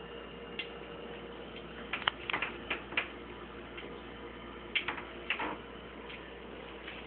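Thin stream of water from a kitchen faucet trickling into a stainless steel sink, with a cat lapping and pawing at it. This gives clusters of sharp little clicks and splashes about two seconds in and again near five seconds.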